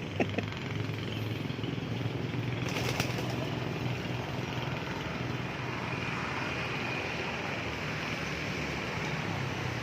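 Steady outdoor background hum with a few brief clicks just after the start and about three seconds in.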